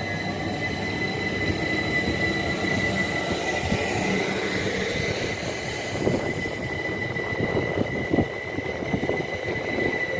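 Southern Class 377 Electrostar electric multiple unit rolling past, a steady rumble with a high whine. From about halfway through its wheels click sharply over rail joints.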